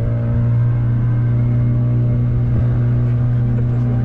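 Motorboat engine running at a steady speed, a constant low drone with higher overtones.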